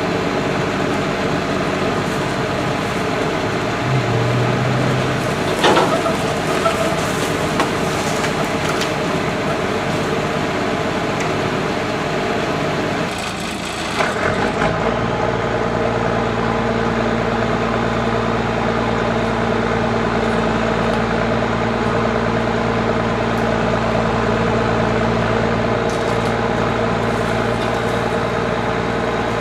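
Engine idling steadily. About 13 seconds in there is a short noisy burst, and after it a deeper, steady engine hum joins.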